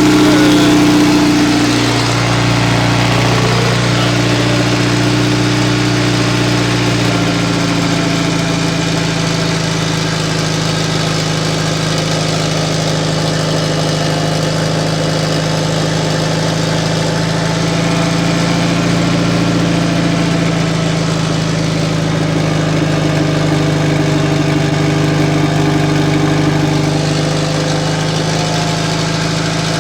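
Mitsubishi Lancer Evolution IX's turbocharged 4G63 inline-four idling after a cold start, very loud, with its idle pitch stepping slightly a couple of times early on.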